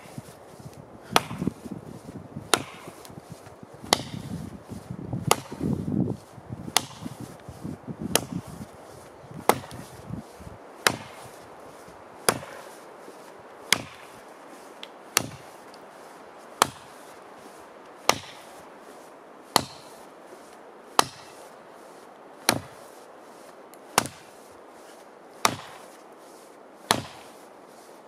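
True Temper Kelly Perfect double bit axe chopping into a downed tree trunk: sharp, even blows, about one every second and a half.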